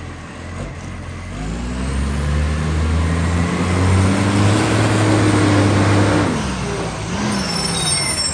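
Garbage truck's diesel engine revving up, held high for a few seconds, then dropping back near the end, with the noisy rasp of a huge exhaust leak.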